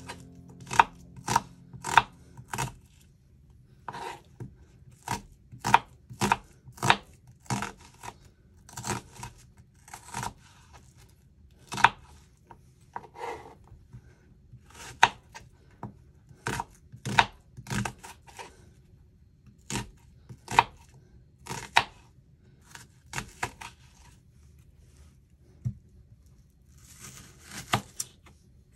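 Knife slicing onions on a cutting board: irregular sharp knocks of the blade meeting the board, about one or two a second, with a brief rustle near the end.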